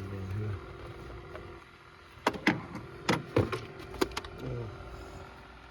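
A quick run of sharp metallic clicks and clanks, tools and parts being handled during work on the engine bay, loudest in the middle of the stretch.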